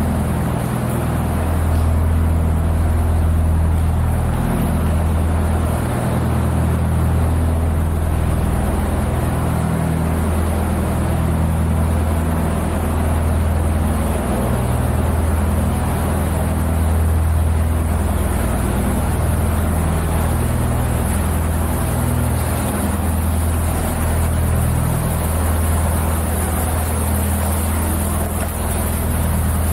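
Narrowboat's diesel engine running steadily at cruising speed, a constant low drone, heard inside a stone canal tunnel.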